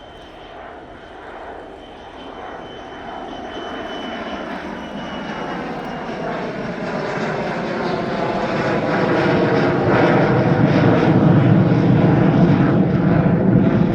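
Aircraft engine growing steadily louder as an aircraft approaches, becoming a broad, loud roar in the second half.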